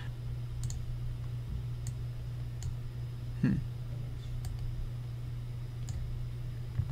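Faint computer mouse clicks, about five spread over a few seconds, over a steady low electrical hum, with one slightly louder soft knock about halfway through.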